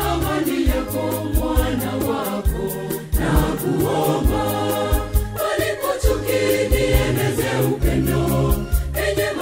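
Mixed choir of men's and women's voices singing a Swahili gospel song in harmony, over a backing with sustained bass notes and a steady beat.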